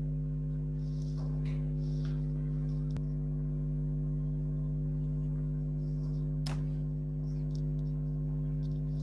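Steady electrical hum of several held tones, over faint rubbing of a duster wiping a whiteboard, with a light click about three seconds in and another past six seconds.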